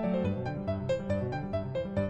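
Background music: a tune of quick, short pitched notes, several to the second.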